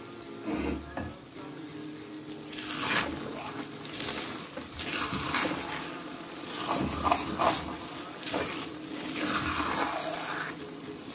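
Thick, glossy apple halwa sizzling in a kadai while a metal perforated spatula stirs and folds it, making repeated wet scraping swishes against the pan. The halwa is cooked down to the stage where it pulls together and comes away from the pan without sticking.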